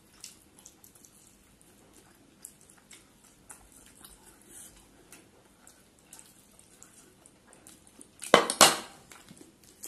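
Faint clinks and taps of fingers and food on hand-held plates during eating. A brief, much louder burst of noise comes near the end.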